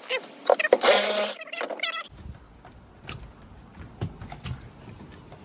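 Reciprocating saw with a long blade cutting the foam insulation packed around an aluminum boat fuel tank. It stops abruptly about two seconds in, leaving quieter scattered knocks and scrapes.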